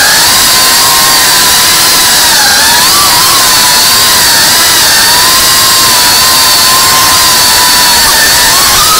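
Tiny whoop FPV drone's motors and propellers, heard close from its onboard camera: a loud steady whine over a rushing hiss, the pitch dipping and rising slightly as the throttle changes.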